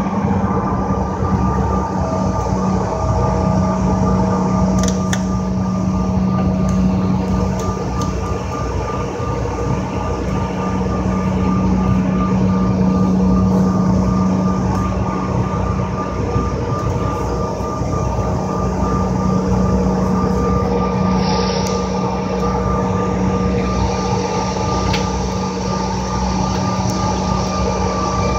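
Cabin noise of a CRJ-700 regional jet taxiing: its rear-mounted GE CF34 turbofans running at low power give a steady low drone with two thin steady whines above it, over a constant rush of air.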